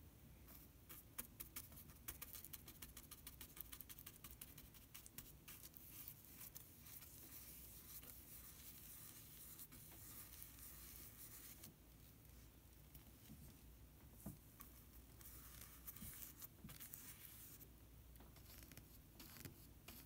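Faint, quick scratchy strokes of a paintbrush working paint across a painting surface, with a quieter gap of a few seconds about twelve seconds in.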